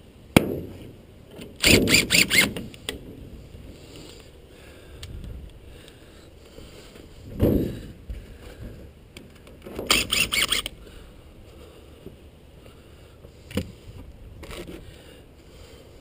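Cordless impact driver running screws into a sheet-metal panel: about a second of rapid hammering near the start, a short burst around the middle and another second-long run a little later, with a few sharp clicks between.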